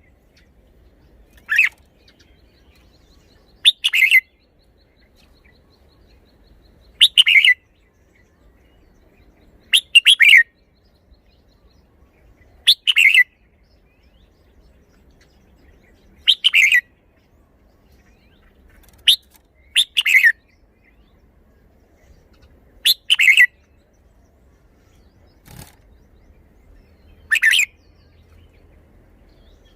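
Red-whiskered bulbul singing short, loud phrases of song about every three seconds.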